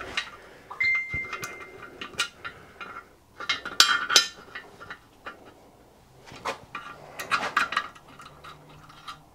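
Irregular light metallic clinks and scrapes of a small bolt and steel guide plate being handled and shifted on a cast-iron casting, with a brief ringing note about a second in and the sharpest clinks about four seconds in.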